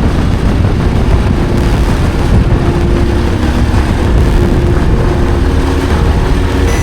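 Yamaha Lander single-cylinder trail motorcycle running steadily while being ridden, with a dense low rumble throughout.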